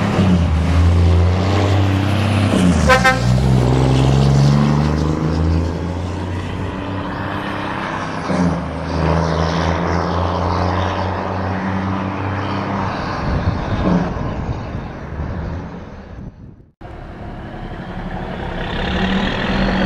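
Scania V8 truck engine with an open exhaust pipe, pulled hard as the truck accelerates away, the pitch stepping with gear changes. A short horn toot sounds about three seconds in. Near the end the sound cuts out abruptly and resumes with the engine running farther off.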